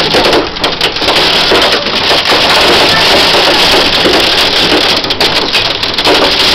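Heavy storm rain beating on a window pane: a loud, dense hiss packed with many quick, sharp hits.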